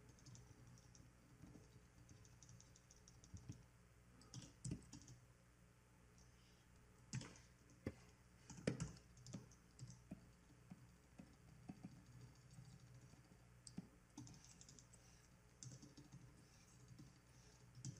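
Faint, irregular clicking and tapping of a computer keyboard and mouse, with a few louder taps about seven and nine seconds in, over a low steady hum.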